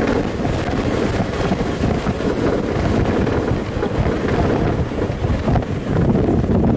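Strong wind gusting over the microphone as a dense, continuous low rumble, near a tornado.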